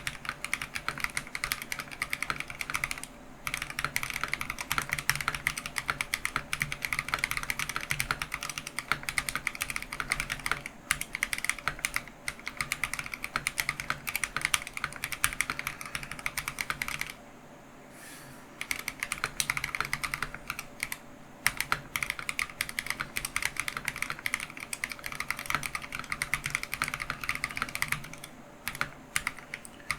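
Fast, continuous typing on a Keychron V1 mechanical keyboard with lubed Akko Matcha Green switches, keys clacking in rapid runs with two short pauses, about three seconds in and just past the middle.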